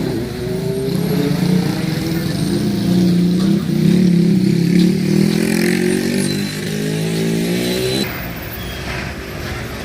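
A motor vehicle's engine pulling away, its pitch climbing slowly and steadily as it accelerates, then cutting off abruptly about eight seconds in.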